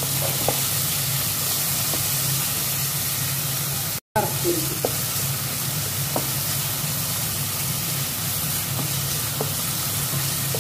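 Chicken strips and garlic cloves sizzling in hot oil in a nonstick pan, stirred with a wooden spatula that gives a few light clicks against the pan, over a steady low hum. The sizzle breaks off for a moment about four seconds in.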